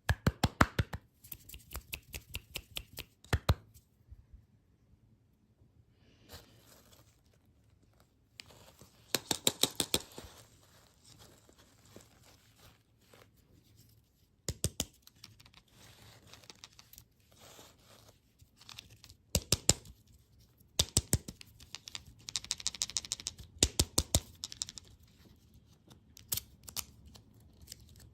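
Close-miked crackling and crinkling of candy and its wrappers being handled, coming in short clusters of sharp crackles separated by quieter pauses.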